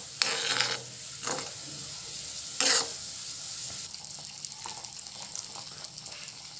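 Creamy spiced masala gravy simmering and sizzling in a steel pan, a steady hiss, with a metal spoon stirring and knocking against the pan a few times in the first three seconds.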